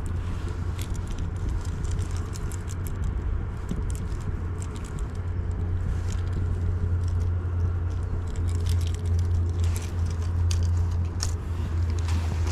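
Close, irregular small clicks and rustles of hands handling fishing tackle while a leader line is rigged, over a steady low hum.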